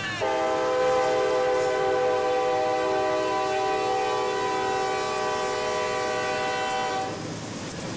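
A diesel freight locomotive's multi-note air horn sounds one long, steady blast of about seven seconds, over the rumble of a passing loaded coal train. The horn is on the lead unit, Norfolk Southern SD70M #2640.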